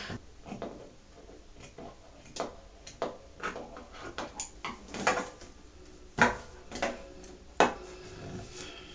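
Scissors snipping as the edges of a sewn tulle-and-fabric piece are trimmed: a run of irregular sharp clicks, several louder snips in the second half.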